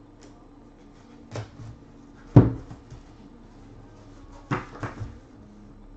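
A few short knocks and taps on a tabletop as trading cards are handled and set down. The loudest is a dull thud about two and a half seconds in, followed by a quick cluster of taps near the end.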